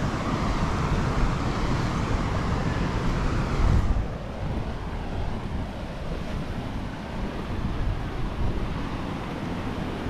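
Wind rumbling on the microphone over a steady rushing noise, which drops in level about four seconds in.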